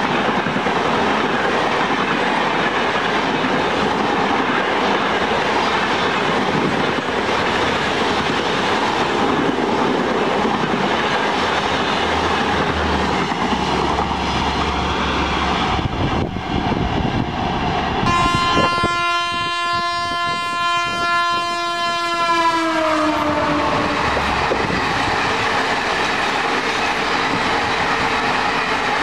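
Passenger trains going by at speed, a steady rush of wheels on rails. About 18 seconds in, a train horn blows one long note for about five seconds, dropping in pitch near the end as the train passes.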